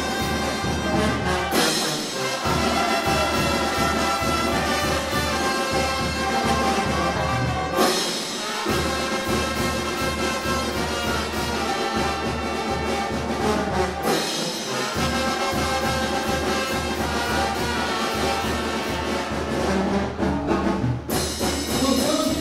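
Mexican banda brass band playing lively dance music: trumpets and trombones over a steady low bass beat, with short breaks between phrases about every six seconds.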